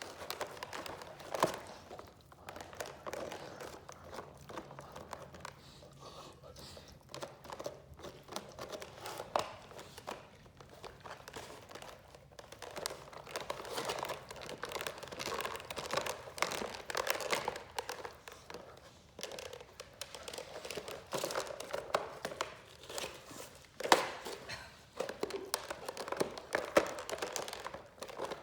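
Two Great Danes gnawing on a jumbo bone: a steady run of irregular crunching, scraping and clicking of teeth on bone, with a few sharper cracks.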